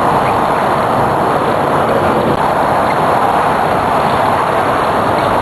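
Steady, loud rushing noise with no clear pitch.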